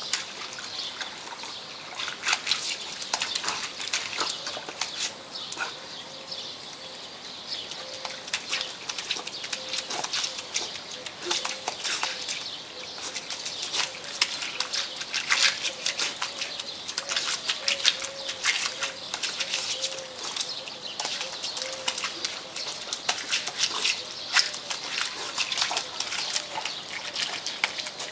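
Labrador puppy's paws slapping and splashing in a sheet of hose water on paving stones: quick, irregular splashes and slaps over a steady hiss of running water.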